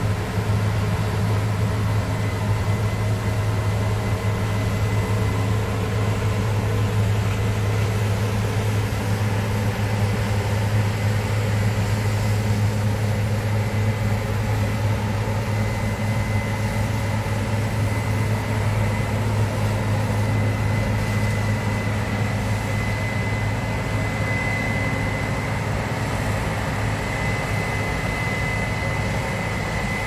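Case IH 7230 Axial-Flow combine harvester running steadily while harvesting barley: a constant low engine hum with a thin high whine over it that grows stronger in the second half.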